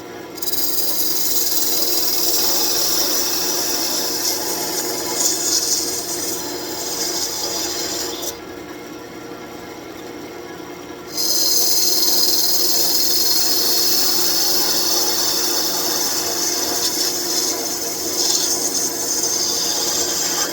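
Turning tool cutting a spinning birch branch on a wood lathe: a loud, steady, hissing cut for about eight seconds, a pause of about three seconds where only the lathe's hum is heard, then the cut starts again and runs on.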